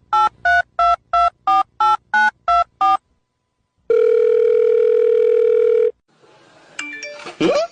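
Telephone keypad tones dialing a number: about ten short two-note beeps, roughly three a second. After a pause comes one steady phone tone of about two seconds, then a brief sound that falls in pitch near the end.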